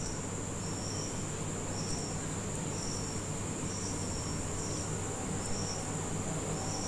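Crickets chirping: a steady high trill with a shorter chirp repeating about once a second, over the faint sizzle of onion paste frying in oil and a low hum.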